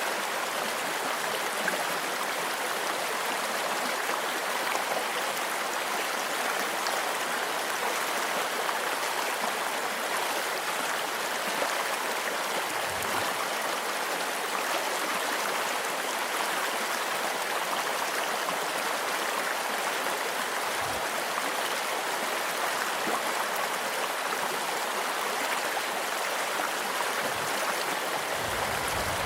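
Stream flowing steadily with an even rushing sound, with a few faint crackles from a campfire.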